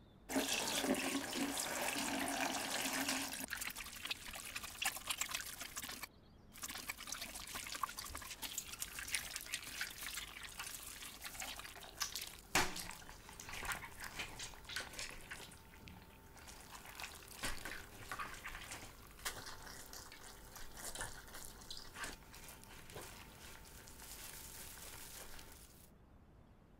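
Wet clay being worked by hand: squelching, smearing and slapping with many small wet clicks, loudest in the first few seconds and briefly breaking off about six seconds in.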